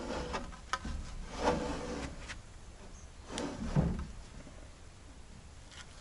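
Wooden boards being handled, knocking and scraping in a few irregular bursts, quieter after about four seconds.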